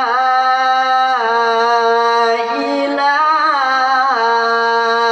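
A man reciting the Qur'an in melodic tilawah style, drawing out the 'la' of 'la ilaha illa huwa' as one long unbroken note. The pitch steps down, rises with a wavering ornament around the middle, then settles lower again.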